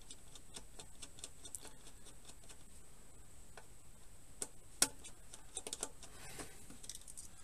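Small, irregular clicks and ticks of hands handling hardware inside a PC case, with a sharper click a little under five seconds in, as an M.2 SSD that did not show up in the BIOS is reseated in its motherboard slot.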